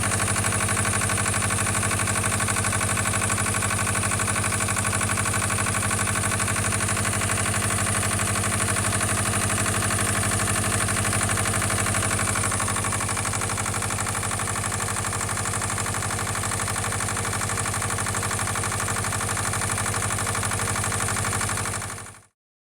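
Asphalt paver's diesel engine idling steadily, dropping slightly in level about two-thirds of the way through, then cutting off abruptly near the end.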